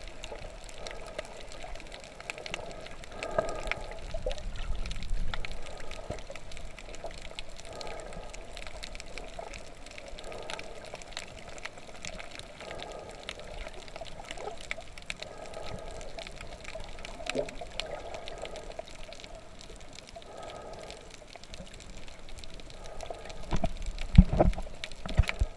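Water sloshing and gurgling, with a few loud thumps near the end.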